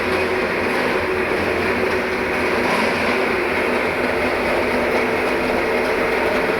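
Electric rubber-roll rice husker (Beltech H100-LEG) running with a loud, steady mechanical drone and a low hum underneath.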